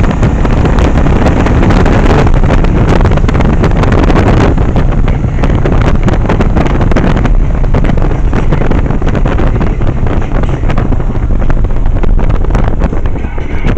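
Heavy wind buffeting on the microphone of a moving Yamaha 1100 motorcycle, with the engine running steadily underneath.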